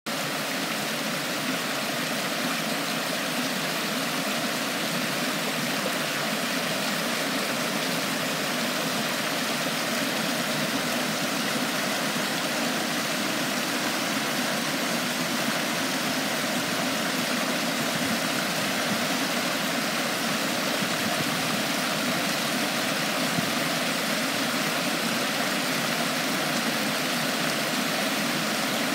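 Small river rushing steadily over boulders and fallen logs in a series of little cascades: a continuous, even rush and splash of white water.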